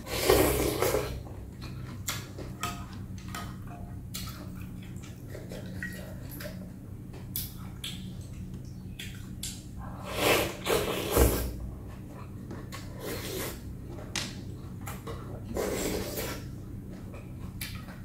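Slurping of rice noodles and broth of bún bò Huế from a bowl: three long slurps, at the start, about ten seconds in and near sixteen seconds. In between come quieter chewing and light clicks of chopsticks and spoon.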